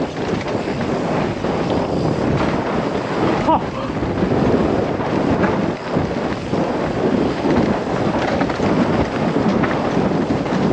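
Wind buffeting the camera microphone, mixed with tyre rumble and bike rattle, as a mountain bike descends a dirt trail at speed, with a short squeak about three and a half seconds in.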